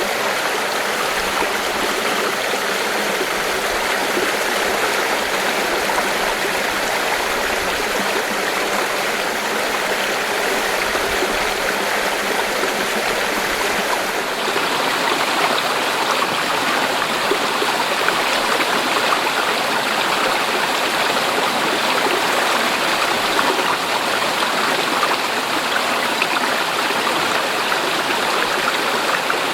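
Mountain stream flowing over rocks: a steady rush and babble of water. About halfway through the sound shifts slightly and gets a little louder.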